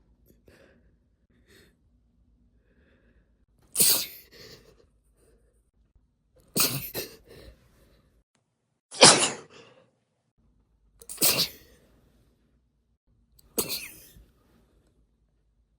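A woman sneezing five times in a row, roughly every two to two and a half seconds, each sneeze short and sharp. The sneezes are induced, brought on by tickling inside the nose.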